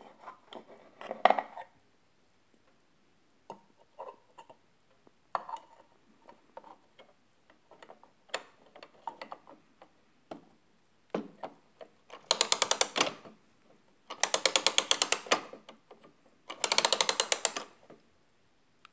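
Spring of an early-1900s Japanese clockwork fly trap being wound by its key: three turns, each a burst of rapid ratchet-pawl clicking, near the end. Before that come scattered light clicks and taps from handling the brass movement.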